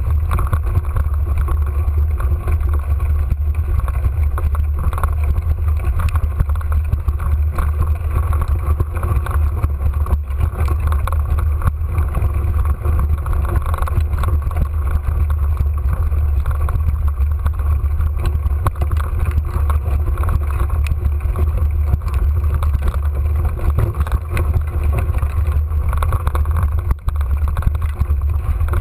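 Continuous low rumble of wind buffeting and ride vibration on a mountain bike's action camera microphone, steady throughout.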